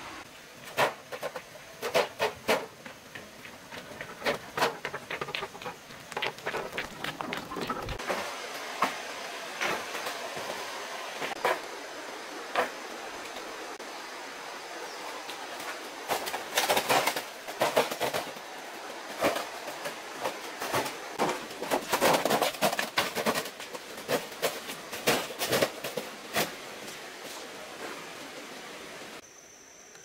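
Stones clacking and clattering against one another as they are gathered and loaded into a wheelbarrow. The knocks come singly and in quick irregular runs, several a second at their busiest.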